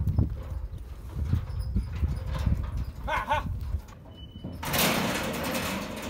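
Hooves thumping and clattering as cattle load into a stock trailer, followed by a loud rushing noise from about five seconds in.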